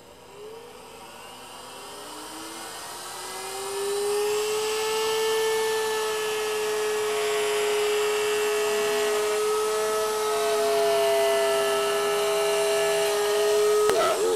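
Table-mounted router spinning up with a rising whine over the first few seconds, then running at a steady pitch as its bearing-guided bit trims walnut flush to an acrylic template, with the noise of the cut mixed in.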